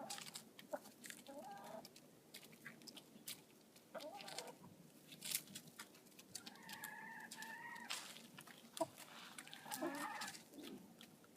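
Backyard hens clucking faintly: several short calls and one longer, held call about two-thirds of the way through, with scattered light ticks.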